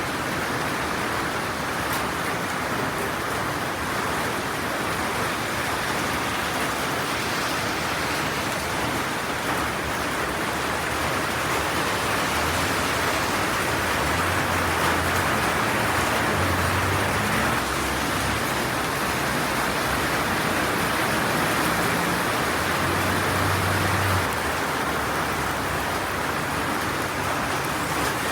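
Heavy rain falling steadily. A low rumble joins it from about twelve seconds in and fades out a few seconds before the end.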